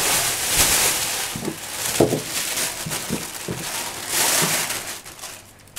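Thin plastic carrier bag being handled, rustling and crinkling, with a couple of light knocks about two seconds in.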